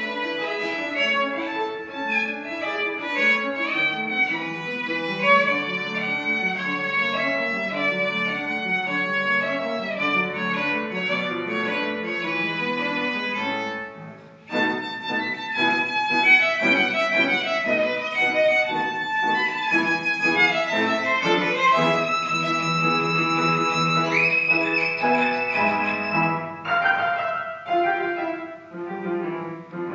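Solo violin playing a classical piece with piano accompaniment. It breaks off briefly about halfway through, and near the end it holds a long high note.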